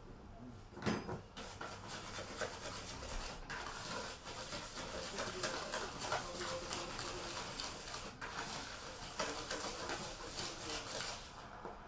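Butter and sugar being creamed together in a bowl: a steady run of quick scraping strokes that starts about a second in and stops near the end.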